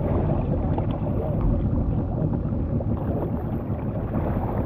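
Wind rumbling on the microphone, with shallow sea water sloshing and splashing around the legs of people wading off a wooden fishing boat.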